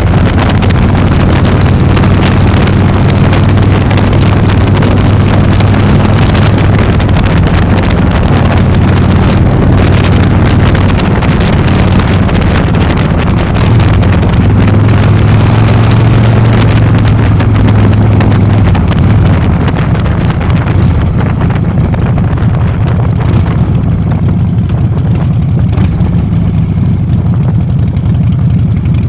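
Motor scooter engine running steadily while riding, with wind rushing over the microphone. In the last third the wind rush eases while the engine hum carries on.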